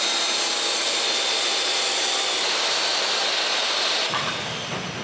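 Portable jobsite table saw running at full speed, its blade cutting a strip of teak-and-holly plywood floorboard, a loud steady whine. About four seconds in the high whine drops away and the sound begins to fade.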